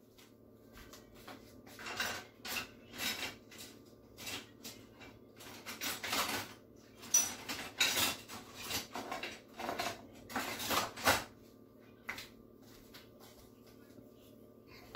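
Plates and cutlery being handled: scattered clinks, taps and scrapes of utensils on dishes, busiest through the middle, over a faint steady hum.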